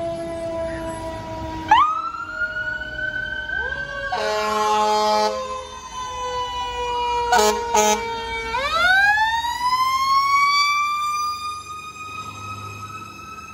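A fire truck's mechanical Q siren winds up sharply about two seconds in, rises slowly, and coasts down in pitch, then winds up again near the middle and climbs slowly. Air horns blast once for over a second about four seconds in, then twice briefly a few seconds later. Before the first wind-up, a siren tone falls slowly in pitch.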